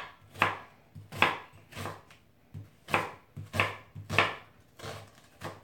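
Chef's knife cutting through a peeled onion and striking a wooden cutting board, about nine separate cuts at an uneven pace of roughly one or two a second.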